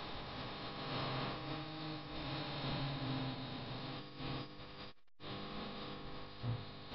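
Steady electrical-sounding hum with hiss, made of many held tones, cutting out completely for a moment about five seconds in.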